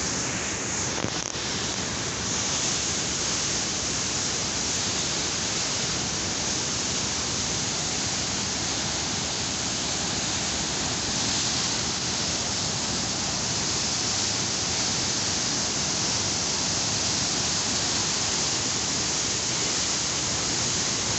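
Dam outflow water gushing out of a sluice outlet and rushing, white and churning, down a stone-lined channel: a steady, unbroken rush of water.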